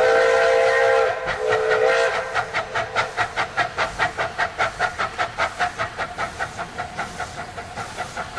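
Metre-gauge steam locomotive sounding its steam whistle twice, a longer blast and then a shorter one, over its exhaust chuffing steadily at about five beats a second as it pulls a train.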